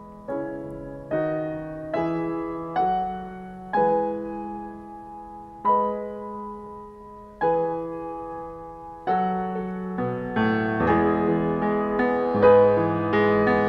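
Grand piano playing a slow instrumental interlude: chords struck every second or two, each left to ring and fade, then fuller, busier and louder playing from about ten seconds in.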